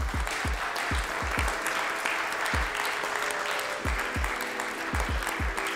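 Crowd applause over background music with a steady thumping beat.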